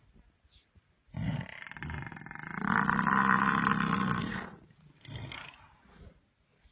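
A loud, drawn-out animal cry of about three seconds, starting about a second in, followed by a couple of shorter calls.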